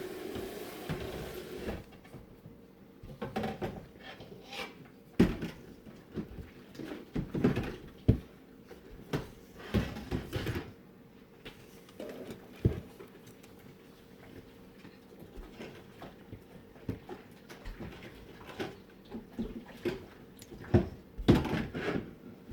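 Kitchen work sounds: scattered knocks, bumps and clatter of bowls, utensils and cupboards being handled at irregular intervals, after a steady hum that stops about two seconds in.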